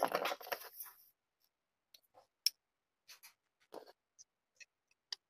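Pencil tracing a knife tang's outline onto a handle scale: a second of dense scraping and rustling at the start, then scattered light scratches and small clicks.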